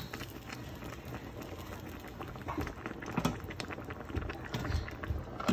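Pot of beef and green bean soup simmering on the stove, the broth bubbling with many small irregular pops and a few duller knocks.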